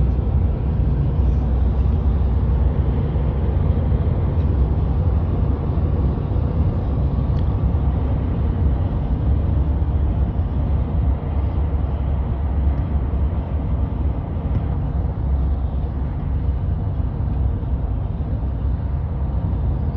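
Steady road and engine noise heard inside a moving vehicle's cabin: a low, even drone with no change throughout.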